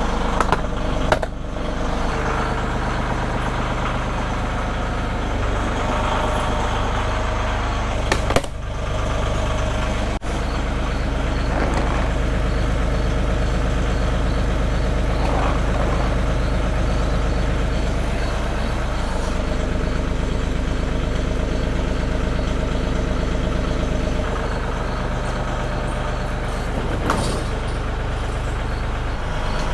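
Massey Ferguson tractor engine running steadily, picking up speed about eleven seconds in and easing back later. A few sharp knocks come over the top.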